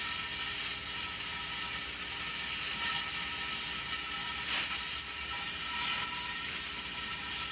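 Plasma cutter torch hissing steadily as its arc cuts through the steel wall of a propane tank, with a brief louder surge about four and a half seconds in.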